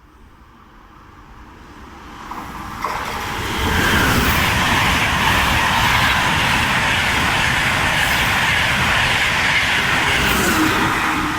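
Train running through a railway station: a rushing rail noise that builds over the first few seconds, then holds loud and steady.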